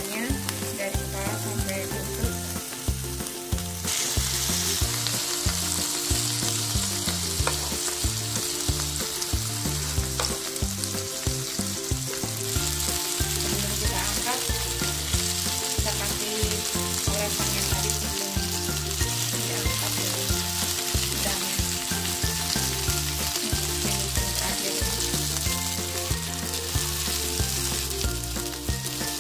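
Large split prawns sizzling in olive oil and melted margarine in a hot nonstick pan. The steady frying hiss grows louder about four seconds in.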